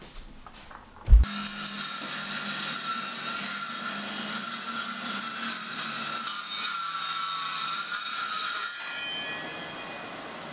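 Bosch circular saw starting with a sharp thump about a second in, then cutting steadily through a wooden kitchen worktop with a held whine. About nine seconds in the cutting stops and only the steady rush of a vacuum hose sucking up the sawdust remains.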